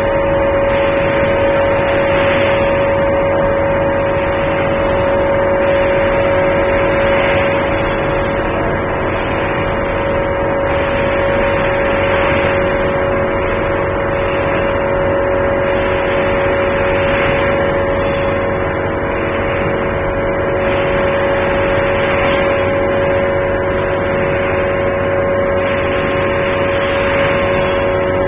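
Egg tray production line running: a loud, steady machine hum carrying several constant tones, with a hiss that swells about every five seconds.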